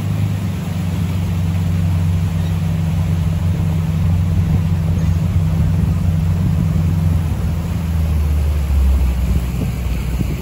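A small motorboat's engine running with a steady low hum. The hum drops in pitch about eight seconds in as the engine slows.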